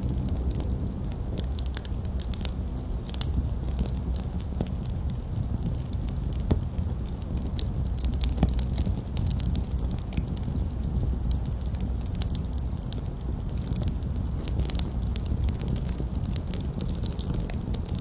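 Open wood campfire burning on the ground: frequent irregular sharp crackles and pops over a low steady rumble.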